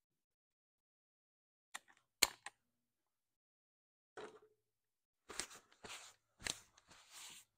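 Faint clicks and knocks of a metal hand tool: a few sharp clicks about two seconds in, then a run of irregular knocks and scrapes from about four seconds on, as the mower deck's idler pulley nuts are loosened with a wrench.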